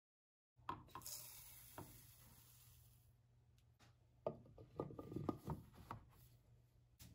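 Faint plastic knocks, clicks and rubbing as a small grinder jar of powdered oats is handled and its clear lid lifted, with a cluster of small knocks in the middle and one more near the end.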